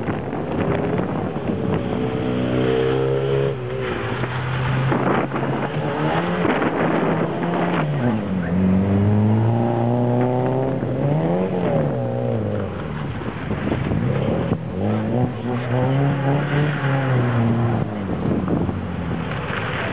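A car engine revving hard and dropping back again and again, its pitch climbing and falling several times as the car accelerates and brakes through a tight course of cones.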